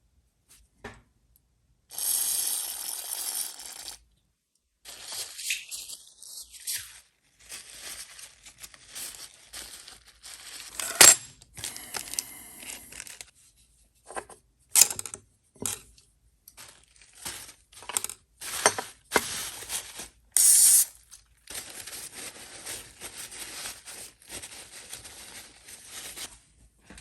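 Small metal parts and tools being handled at close range: stretches of scraping and rustling broken by sharp clicks and clinks, the loudest about eleven seconds in.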